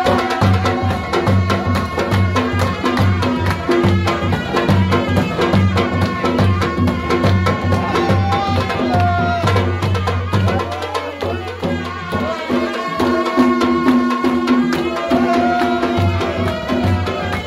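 Live Chitrali folk dance music: dhol drums beating a fast, steady rhythm under a held, gliding melody line. The deep drumming drops out briefly about eleven seconds in, then comes back.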